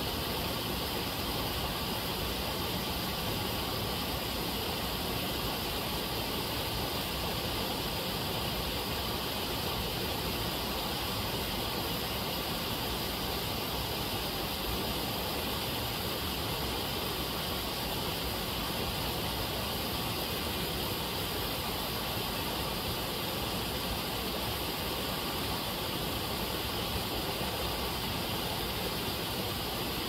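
Water pouring over a low, wide rock-ledge waterfall into a pool, making a steady, even rushing.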